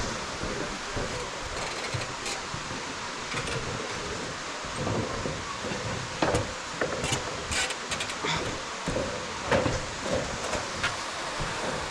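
Steady rush of falling water from the waterfall, with irregular soft knocks and rustles over it.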